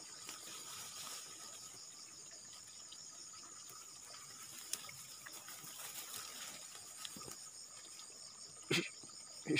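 Steady high-pitched insect chorus, a continuous trilling like crickets, with faint rustling and a short louder noise near the end.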